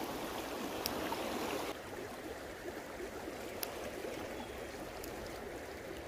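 Shallow creek water rushing over rocks in riffles, a steady even rushing that softens slightly a little under two seconds in.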